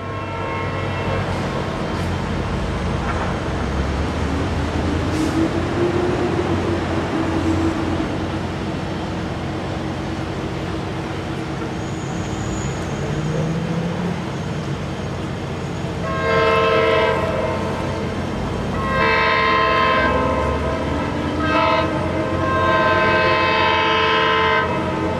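Nathan K5LA five-chime air horn on an approaching Coaster cab car, sounding three long chords with a brief one before the last: the long-long-short-long grade-crossing signal. Under it runs a steady low rumble.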